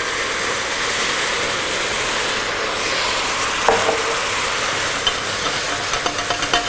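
Red wine poured into a very hot stainless steel pot of roasted veal bones and vegetables, sizzling loudly and steadily as it deglazes the pan and boils off in steam. A wooden spoon stirring in the pot gives a sharp knock near the middle and a few lighter knocks toward the end.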